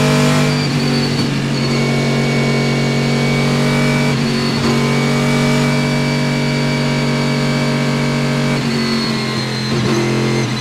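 Panoz Esperante GTR-1's 6-litre V8 race engine heard from inside the cockpit, running at steady revs. The note shifts briefly about four seconds in and again near the end.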